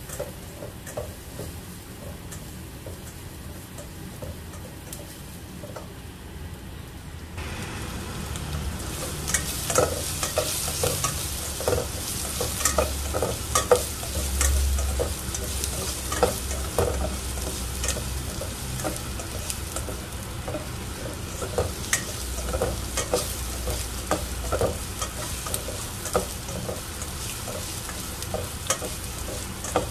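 Chopped onion and garlic sizzling in hot oil in a nonstick pan, with a spatula stirring and scraping against the pan in many short clicks. The sizzle grows louder and brighter about seven seconds in.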